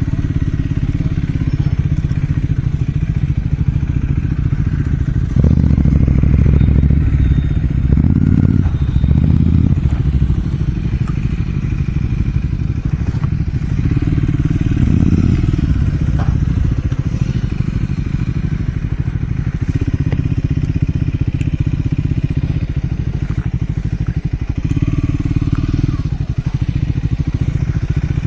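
Triumph Scrambler 400 X's single-cylinder engine running under way, with the throttle opened harder twice: about five seconds in, and again around fourteen seconds. A few short knocks sound over it.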